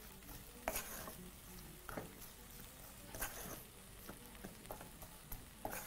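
Wooden spoon folding and pressing stiff brown ugali dough in a metal saucepan: faint scrapes and soft knocks against the pot, a few in a row, over a low sizzle of the pot on the heat.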